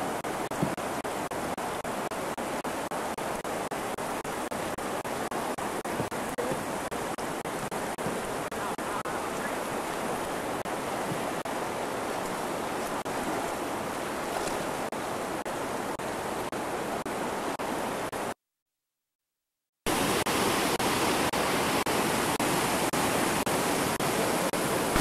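Steady rushing of white water through river rapids and over boulders. The sound cuts out completely for about a second and a half late on, then comes back slightly louder.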